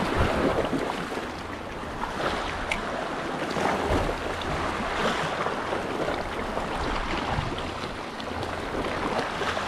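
Sea waves washing and swirling over shoreline rocks close by, a steady rush of surf, with wind rumbling on the microphone.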